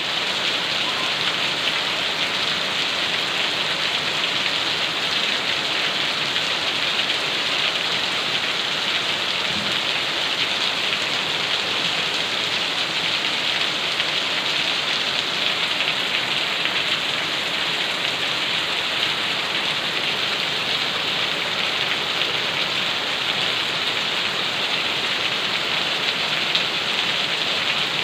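Steady rain falling and pattering on surfaces, an even hiss of drops with no letup.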